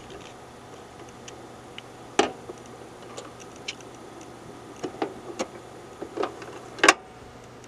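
A 7-inch 45 rpm vinyl single spinning on a turntable with no music playing: a low hum and faint surface noise with scattered clicks and pops, the loudest about two seconds in and near the end. The stylus is riding the run-out groove after the song.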